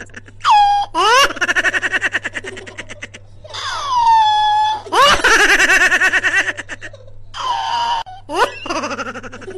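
A person laughing in an exaggerated, comic way: quick bursts of ha-ha pulses broken by rising and falling swoops of pitch, with a long falling swoop about four seconds in.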